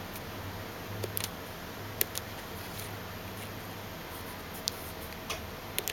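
About half a dozen light, scattered clicks of a handheld oscilloscope's front-panel buttons being pressed, over a steady low hum.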